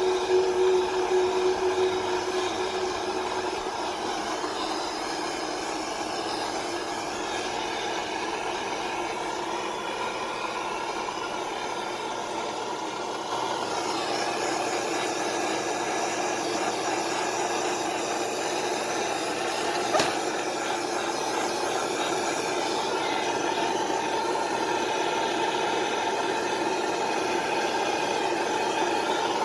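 Gas soldering torch flame hissing steadily while heating a pipe joint for soldering. It gets slightly louder about halfway, with a single short click about two-thirds through.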